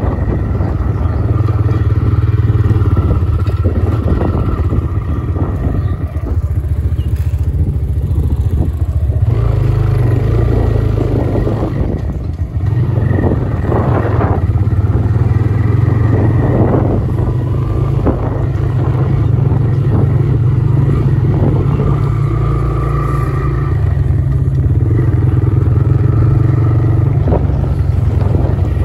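Motorcycle engine running at steady riding speed on a dirt track, easing off briefly a couple of times.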